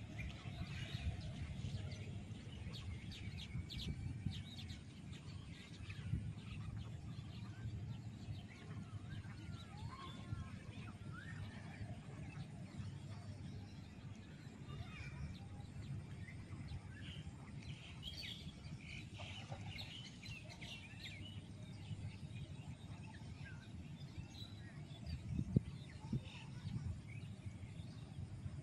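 Birds chirping and calling here and there, short scattered chirps over a steady low rumble, with two brief thumps near the end.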